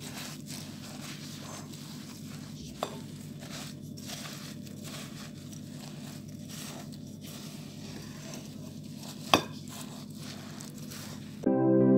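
Thick, crumbly oat cookie dough being stirred and folded in a glass bowl: irregular soft scraping, crunching strokes, with a light clink about three seconds in and a sharper, louder clink against the bowl about nine seconds in. Music comes in near the end.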